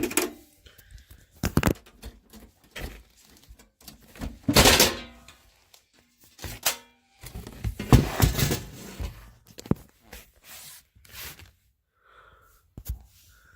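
Handling and opening the case of a small HP desktop PC: a string of clicks and knocks, with two longer scraping sounds about four and eight seconds in.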